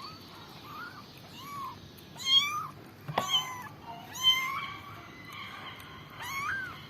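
Kittens meowing: a string of about seven short, high calls that rise and fall in pitch, the loudest about two and four seconds in.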